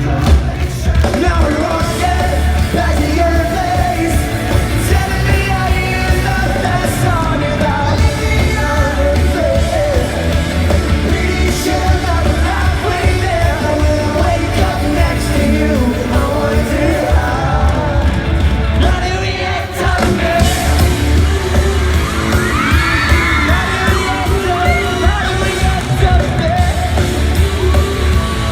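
Pop-punk band playing live, with lead vocals over drums, bass and electric guitars, and the crowd yelling and screaming along.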